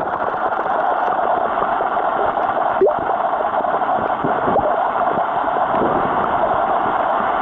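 Flowing stream water heard from underwater: a steady, muffled rush with a few small knocks and gurgles, one sharper tap about three seconds in.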